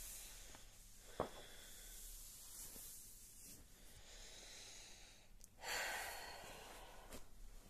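Quiet room with a person's audible breath out a little before six seconds in, and a soft click about a second in.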